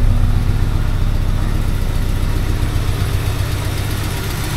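1988 Saab 900 Turbo's four-cylinder engine idling steadily as it warms up after a hard start, with an even low pulsing note.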